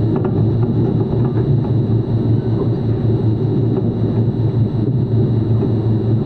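Steady low mechanical hum and rumble of running machinery, with faint scattered ticks.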